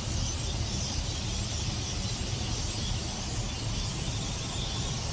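Dense, even chatter of a very large flock of birds over a steady low rumble.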